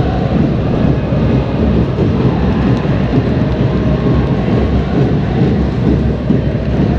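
Football stadium crowd noise heard from the stands: a steady, dense roar of spectators and supporters that does not let up.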